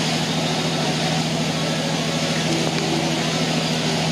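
A cruise boat's engine running with a steady low hum, over the rushing of water churned up in its wake.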